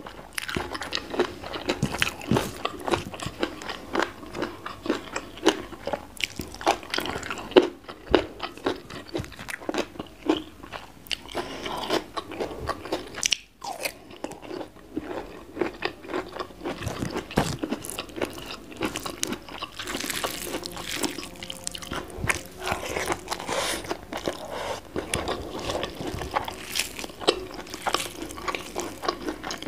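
Close-miked eating: crisp crunching bites and chewing of raw vegetables, a dense run of crackly crunches.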